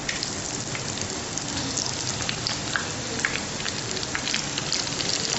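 Gram-flour-battered spinach leaves (palak pakoras) deep-frying in hot oil in a wok: a steady sizzle with many small pops and crackles.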